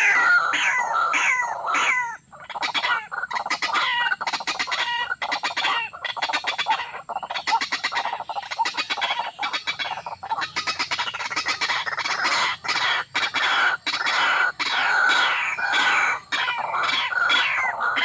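Harsh, rapidly repeated clucking calls of a waterhen, running on almost without pause, with a short break about two seconds in.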